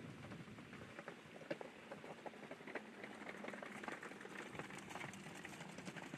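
Faint, dense patter of small water ticks and splashes from shallow river water at the bank.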